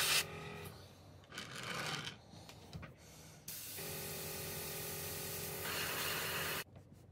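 Gravity-feed airbrush spraying gloss varnish in spurts: a hiss of air at the start, a brief burst near two seconds, then a longer steady hiss from about halfway that cuts off suddenly near the end.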